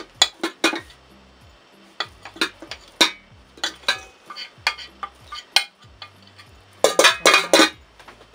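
Metal spoon clinking and scraping against a glass baking dish while greasing it with rendered interior fat (suet). Irregular taps throughout, with a quick run of clinks about seven seconds in.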